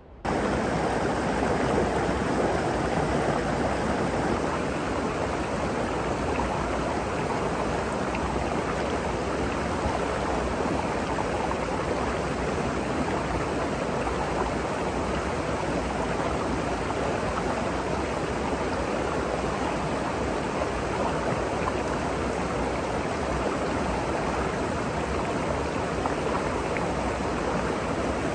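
Mountain stream rushing over rocks: a steady, even rush of water that starts abruptly at the outset.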